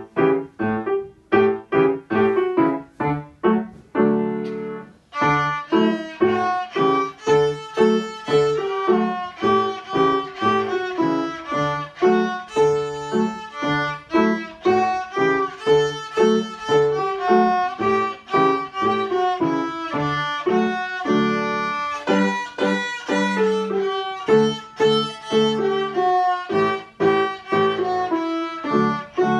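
Violin and piano playing together. The piano plays alone for the first five seconds or so, in short struck chords, and then the violin comes in with bowed notes over the piano's steady rhythmic accompaniment.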